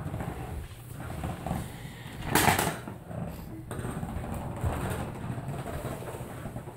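Plastic wheels of a child's ride-on toy rumbling across a hardwood floor, with one louder sudden noise about two and a half seconds in.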